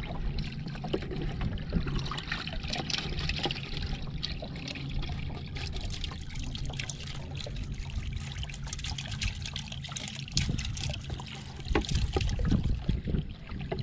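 Water splashing and trickling in a boat's livewell as a small dip net is worked through it to scoop out a baitfish.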